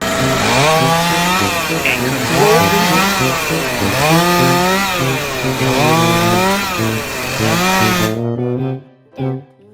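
A loud power tool running with a dense hissing noise over background music, rising and falling in pitch about every second and a half, then stopping abruptly about eight seconds in.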